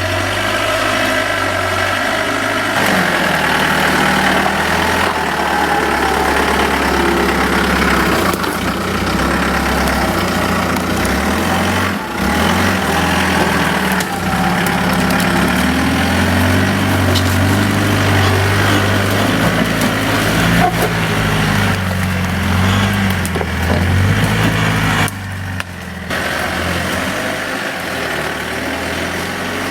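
Four-wheel-drive vehicle engine running at low revs while crawling offroad, its pitch rising and falling as the throttle is worked. There is a short drop in the sound about 25 seconds in.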